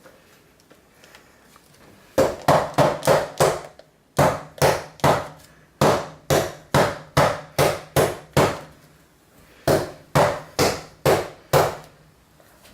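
Repeated sharp knocks in three runs, two to three a second: a Pringles-can mold packed with hot-process soap being knocked down on a hard work surface.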